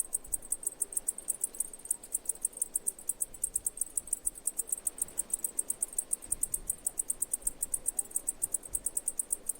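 Cicadas singing: a steady, high-pitched buzz made of rapid, even pulses, about eight or nine a second.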